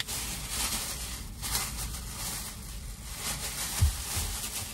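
Thin plastic shopping bag rustling and crinkling as it is handled and the double bag pulled apart, with a soft thump near the end.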